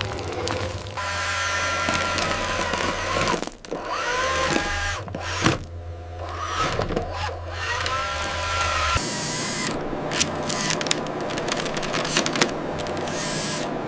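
A small motor whining in short bursts, its pitch rising several times, with scattered clicks and knocks; the sound changes about nine seconds in to a hissier run with more clicking.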